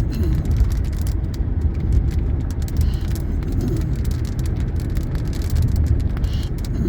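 Steady low rumble of a car heard from inside the cabin: engine and tyre noise of the vehicle being driven.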